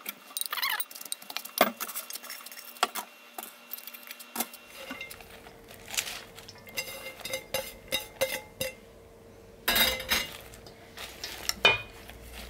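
Wild chives, spring cabbage leaves and julienned carrot being dropped and spread by hand in a metal mixing bowl: irregular rustling with light taps and clinks against the bowl, loudest in a cluster of knocks a little past the middle.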